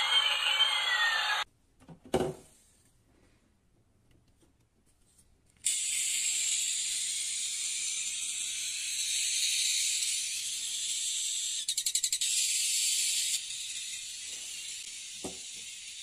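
Battery-powered toy airliner's electronic sound effects: a siren-like tone with pitch sliding up and down that cuts off about a second and a half in, followed by a click. After a few seconds of near silence a steady high hiss starts, with a quick run of clicks about twelve seconds in, and drops in level a little later; a light knock comes near the end.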